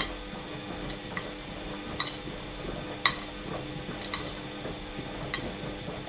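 Washing machine running mid-programme: a steady motor hum as the drum turns, with sharp clicks and knocks from inside the drum about once a second, the loudest a little after three seconds in.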